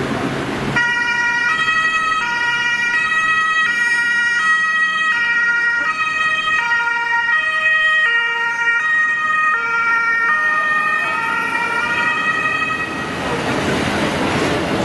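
German two-tone siren on a Mercedes-Benz Sprinter patient-transport ambulance, switching back and forth between a high and a low note about every three-quarters of a second as the ambulance drives past. It starts about a second in and cuts off near the end, leaving traffic noise.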